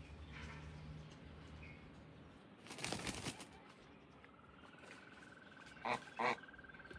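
A bird's wings flapping in a brief flurry about three seconds in, then two short, loud bird calls in quick succession near the end, over a thin, steady high-pitched trill.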